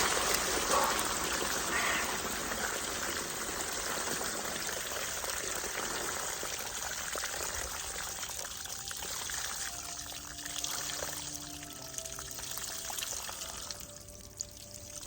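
Water pouring and trickling into an outdoor ice-bath tub, fading gradually. Faint background music notes come in during the second half.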